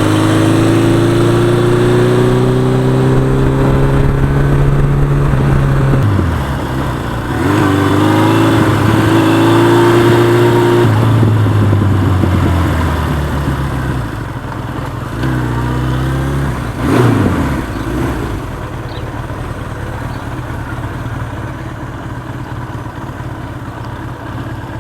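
1982 Suzuki GS1100E's air-cooled inline-four engine running under way, its pitch holding and then stepping several times as it is shifted through the gears, with wind noise. After about fourteen seconds it settles into a quieter, steadier run.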